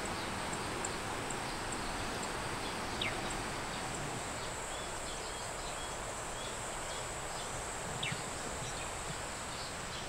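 Mountain forest ambience: a steady high insect drone over an even background rush, with two short falling bird chirps about three and eight seconds in.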